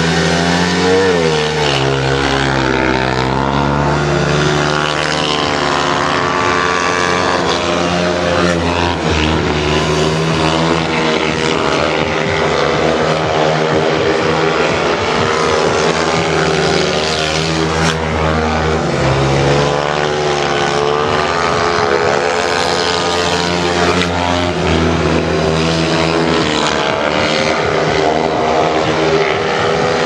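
Single-cylinder speedway motorcycle engines running hard round a dirt oval, the pitch rising and falling continuously as the bikes are revved.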